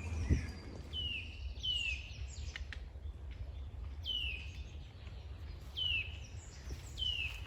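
A songbird calling: a short whistled note falling in pitch, repeated five times at uneven gaps, over a low steady outdoor rumble. A single knock sounds just after the start.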